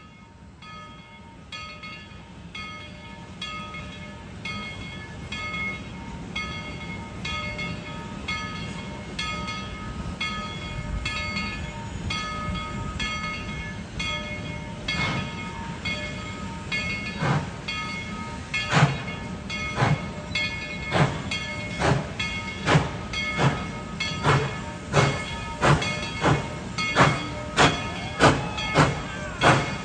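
Steam locomotive approaching, its exhaust chuffing in a steady beat that grows louder and stronger, with its bell ringing over the chuffs.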